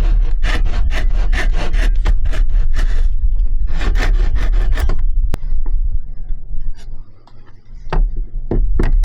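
Hand saw cutting wood in quick, even strokes, about two a second, stopping about five seconds in; a few sharp knocks follow near the end.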